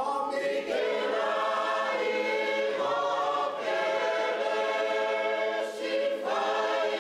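A choir singing in long held chords, with new phrases starting a few times.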